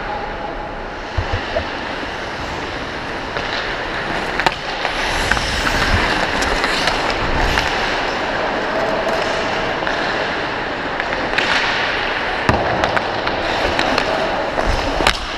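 Ice hockey skates carving and scraping across the ice, heard from the skating player, with a few sharp clacks of a hockey stick on the puck and ice.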